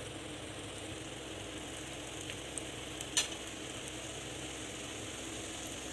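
Samosas deep-frying in hot oil in a frying pan: a steady sizzle and bubbling, with a sharp tap about three seconds in as another samosa goes into the pan.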